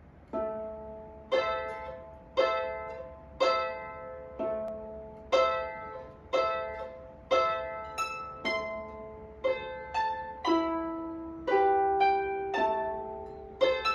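Small lever harp played solo: plucked notes and two- and three-note chords about one a second, each ringing on and fading away, with quicker notes in the second half.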